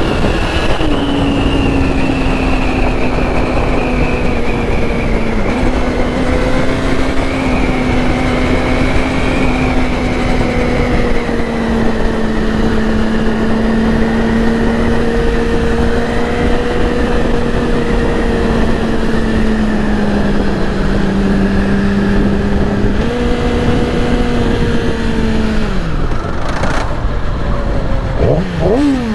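A 2008 Yamaha R6's inline-four engine running at a steady cruise under wind rush. The engine note sags slowly, jumps up about three-quarters of the way through, then drops off, and a quick rev rises and falls near the end.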